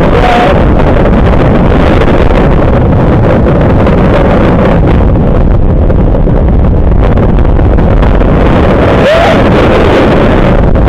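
Loud, steady wind rush buffeting an onboard microphone, mixed with the running rumble of a Vekoma roller coaster train at speed through its turns. A brief higher-pitched glide stands out about nine seconds in.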